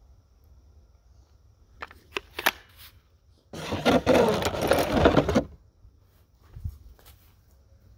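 A few sharp metallic clicks from loading a Ramset powder-actuated tool, followed about three and a half seconds in by some two seconds of loud rustling as a sweatshirt brushes right against the microphone.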